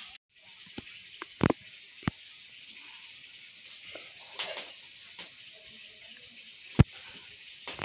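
Wood fire hissing steadily with scattered sharp crackles while a whole rooster is held in the flames to singe it, with one louder pop near the end.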